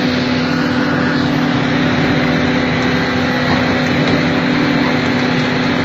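Excavator's diesel engine running steadily: a constant low hum under a noisy rush.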